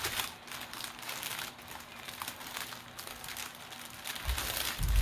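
Small plastic zip-lock bags of diamond-painting drills crinkling and rustling as they are handled and gathered into a bundle, with a few dull low thuds near the end.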